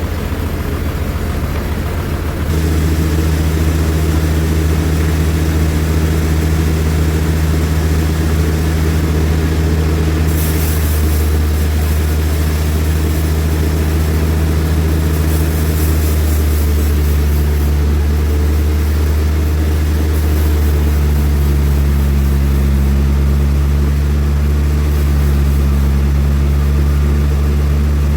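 Heavy machinery engine running steadily with a low hum, getting louder about two and a half seconds in and holding steady after that.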